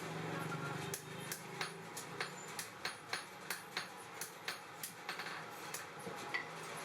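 Hand hammer striking hot steel on an anvil in a steady rhythm of about three blows a second, a dozen or so strikes, tailing off near the end, over a low steady hum.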